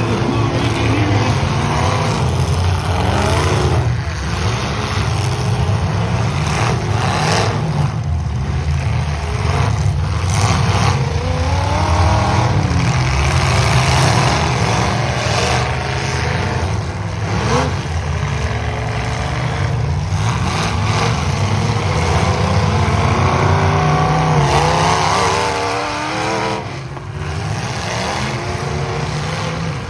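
Several demolition derby cars running hard together, their engines revving up and down over and over, with sharp crashes now and then as cars hit each other.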